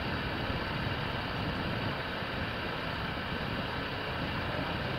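Kawasaki C-2 military transport's twin General Electric CF6 turbofan engines running at taxi power: a steady jet rumble with a faint whine over it.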